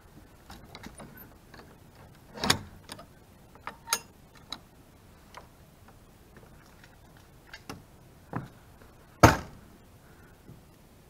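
A handful of irregular sharp knocks and clicks, as of things being handled and bumped on wood, with the loudest knock about nine seconds in.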